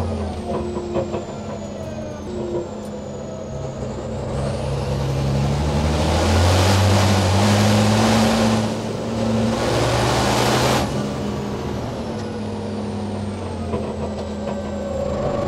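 Race truck's turbodiesel engine pulling under load, its pitch rising from about four seconds in, with a loud rushing noise from about six to eleven seconds, then easing back to a steadier run.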